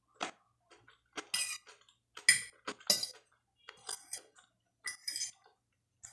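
A metal fork clinking and scraping against a glass plate in a series of about six or seven short strikes, some ringing briefly.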